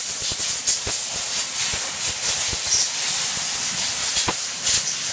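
Compressed air blow gun hissing steadily, blowing swarf and coolant off a freshly milled aluminium plate, with occasional light ticks.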